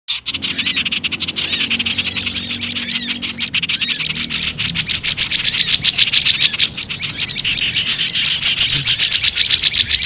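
Bird-lure (pikat) recording of many small birds calling at once: a busy chorus of rapid high chips and twitters, with short arching whistled notes repeated over and over.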